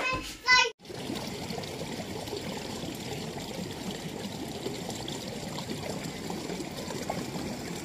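Steady splashing of running water, starting abruptly about a second in after a brief child's voice.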